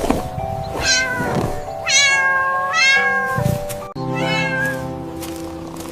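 A cat meowing about four times, one longer drawn-out meow near the middle, over background music.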